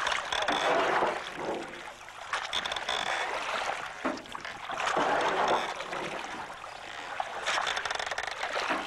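Oars pulling a rowboat through river water, a swishing splash that swells and fades with each stroke, every two to three seconds.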